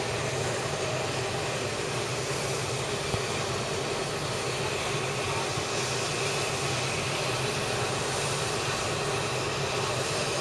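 Steady running noise of a steam-hauled train, heard from an open carriage window as the Peppercorn A1 Pacific 60163 Tornado works it slowly round a curve. It is an even rumble and rush with no clear exhaust beat or sudden sound.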